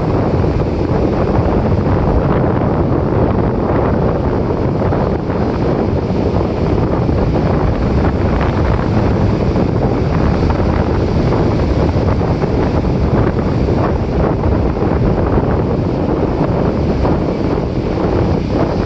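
Atlantic Ocean surf washing steadily onto a beach, with wind buffeting the microphone.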